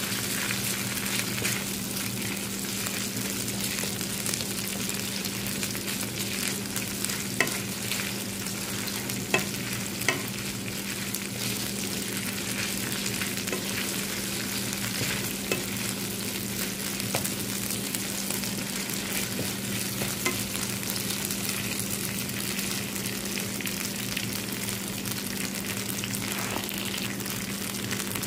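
Ginger and garlic paste sizzling in hot olive oil in a nonstick frying pan, stirred with a wooden spatula. A few sharp taps of the spatula against the pan come about a third of the way in.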